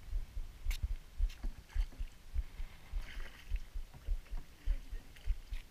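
Water slapping and knocking against the hull of a small rowboat: irregular low thuds, about two a second, with a few sharp knocks in the first two seconds.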